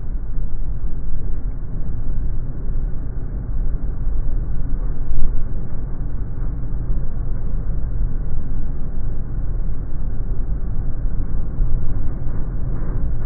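Aircraft rolling fast along the runway on its twin-wheel nose landing gear: a loud, steady low rumble of tyres on the runway surface, with one brief louder bump about five seconds in.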